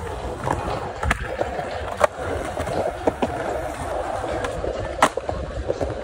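Skateboard wheels rolling over smooth concrete with a steady rumble. Three sharp clacks of the board come about a second in, at two seconds and near five seconds, with lighter knocks between.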